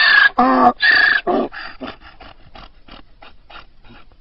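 Donkey braying: two loud hee-haw cries, then a run of short wheezing gasps, about three a second, that fade away.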